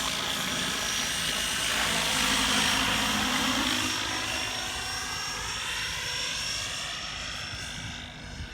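A 12-cell electric RC helicopter flying, its rotor and motor whining. The pitch slides up and down; it is loudest two to three seconds in, then fades as it moves away.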